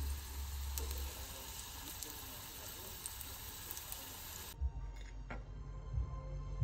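A small dab of minced-meat filling sizzling in hot oil in a nonstick frying pan. The sizzle cuts off about four and a half seconds in, followed by a few light clinks of a fork and tongs against a plate.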